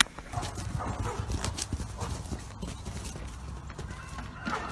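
Horse hooves striking the ground in quick, irregular knocks as a horse moves.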